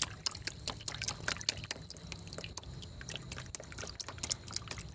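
Shallow pond water splashing and dripping in many irregular small plops as it is scooped and stirred, an attempt to catch a small fish.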